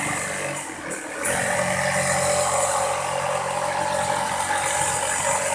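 Electric jigsaw running and cutting through an MDF panel, a steady motor whine over the blade's rattle. It dips briefly about a second in, then runs evenly.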